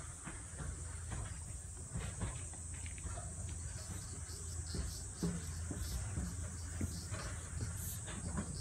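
Insects buzzing in a steady high drone over a low, steady hum, with scattered faint clicks.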